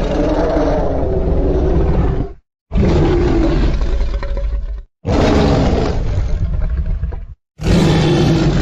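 Monster roar sound effects made for a fan-created Godzilla: a run of long, deep, rasping roars, each about two to three seconds, separated by brief silences.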